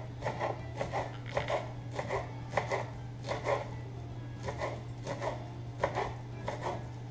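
Chef's knife slicing a bunch of fresh basil leaves on a plastic cutting board, the blade tapping the board in an uneven run of about two to three strokes a second, over a steady low hum.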